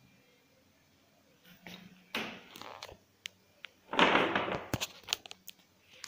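Rustling and scraping noises with a few sharp clicks and knocks, loudest in a burst about four seconds in, as a cat pushes at a black bag or box while the camera is handled close by.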